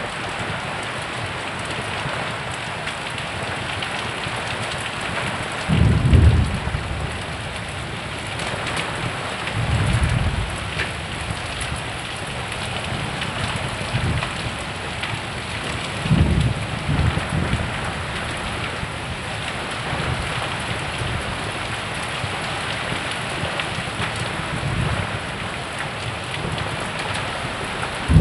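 Heavy rain pouring down steadily, with a few short low rumbles of about a second each.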